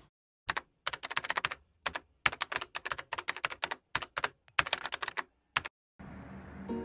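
Computer keyboard typing sound effect: rapid key clicks in several short runs with dead silence between them.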